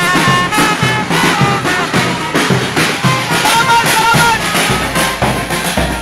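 A trumpet playing short, repeated melodic phrases over a steady drum beat from a marching street band. The trumpet drops out a little over halfway through while the drumming continues.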